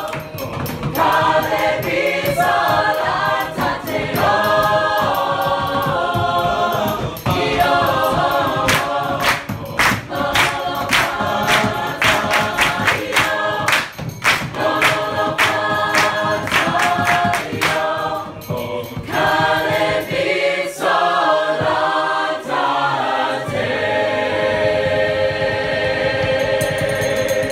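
A group of mixed voices singing a song together in harmony, unaccompanied, with rhythmic hand clapping on the beat. The clapping drops away about two-thirds of the way through, and near the end the singers hold a long final chord.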